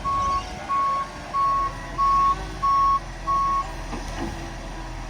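Concrete truck's reversing alarm beeping steadily, six beeps at about one and a half a second, then stopping about three and a half seconds in, over the truck's engine rumble.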